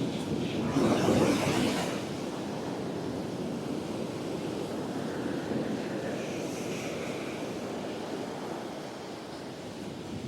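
Waves breaking on the beach, one louder wash about a second in, with wind buffeting the microphone.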